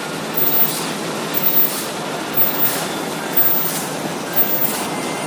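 High-speed CNC milling machine running: a steady mechanical hiss that swells in a regular rhythm about once a second.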